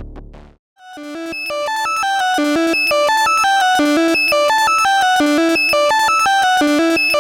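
Eurorack modular synthesizer playing a fast sequence of short stepped notes through a ring modulator, giving a metallic, clangy tone; it fades in about a second in after a brief silence, as the low sound before it dies away.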